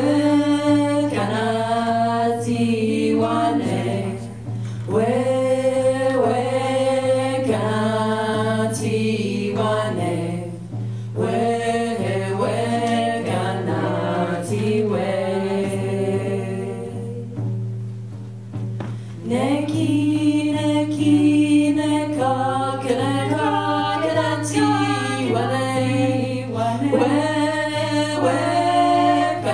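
Several women's voices singing a song together on stage. Just past the middle, the singing breaks for about two seconds, then resumes.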